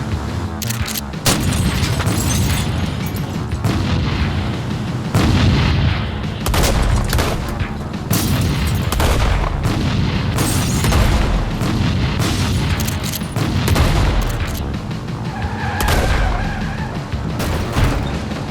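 Action-film sound mix: music under repeated deep booms and sharp cracks like gunfire, with a wavering high tone about two-thirds of the way through.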